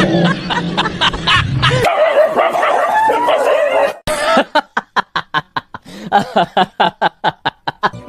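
A dog barking in a fast run of short, sharp barks, about five a second, starting about halfway through. Before that, high wavering cries and snickering laughter sound over music.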